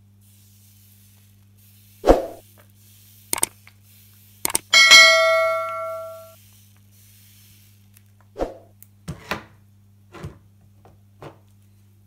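Knocks and taps as a plastic squeeze bottle of batter is handled over a metal crepe pan, with one metallic ding a little before the middle that rings for about a second and a half, then a run of softer taps. A steady low electrical hum runs underneath.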